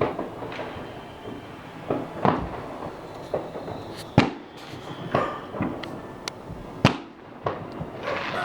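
Fireworks going off in an irregular series of sharp bangs and pops, about half a dozen of them loud.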